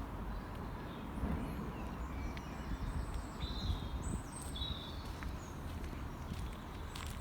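Footsteps on a path, with small birds chirping now and then over a low steady rumble.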